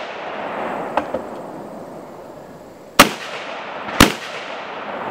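Two rifle shots about a second apart, each loud and sharp with a short echo, fired at a steel-free paper target through the ports of a shooting barricade. A fainter pair of pops comes about a second in.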